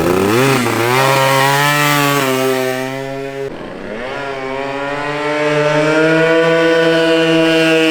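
150cc GY6 scooter engine with an aftermarket exhaust, opened up under acceleration. The revs climb and hold steady, drop as the throttle is let off about three and a half seconds in, then climb again and hold.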